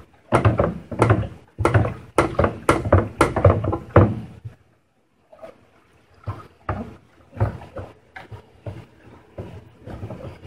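A long spoon stirring honey and water for mead in a fermenter, knocking against the vessel's sides about twice a second, then a short pause and softer, uneven knocks. The knocks come from stirring hard to dissolve honey that has settled on the bottom.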